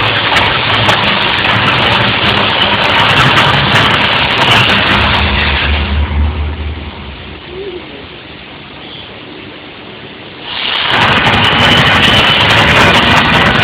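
Loud, steady roar of the Las Vegas volcano show's eruption effects. About halfway through it falls away to a quieter hiss for a few seconds, then comes back suddenly.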